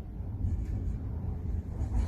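Strong wind buffeting the microphone in a snowstorm: a dense, steady low rumble with faint hiss above it.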